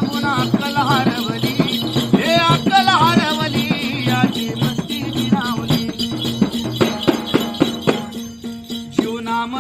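Instrumental opening of a Marathi folk song: a steady drone under a bending, ornamented melody, with jingling percussion keeping the beat.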